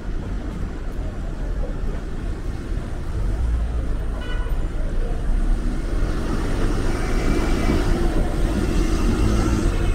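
City street traffic: motor vehicles running past in a steady rumble that grows louder in the second half, with a short car horn toot about four seconds in.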